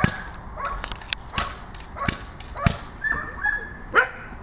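Belgian Malinois barking and yelping at a decoy during protection work, among several sharp cracks of the decoy's stick; the loudest crack comes about four seconds in.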